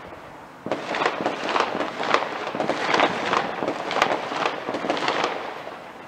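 Fireworks crackling: a rapid string of sharp crackling bangs that starts just under a second in and eases off near the end.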